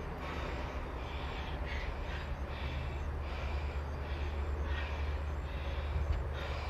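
Low wind rumble on the microphone, with short raspy sounds repeating about twice a second.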